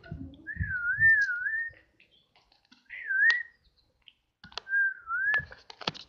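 A person whistling three times: a slow, wavering tone that rises and falls, the first phrase the longest. A few sharp clicks sound in the second half.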